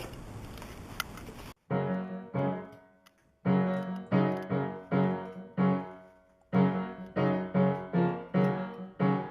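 A steady hiss for about the first second and a half, then background piano music: repeated struck chords, each dying away, in a steady rhythm with short gaps.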